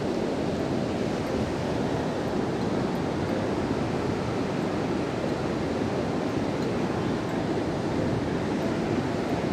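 Mountain stream water rushing over rocks: a steady, even roar with no breaks.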